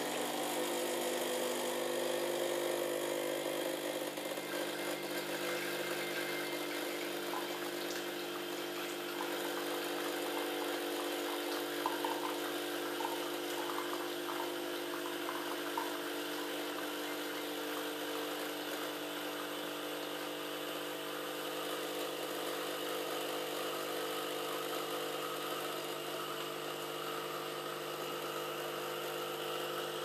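Philips Senseo coffee maker's pump running through a two-cup brew cycle: a steady hum over the splashing trickle of water pouring from the spout into a glass.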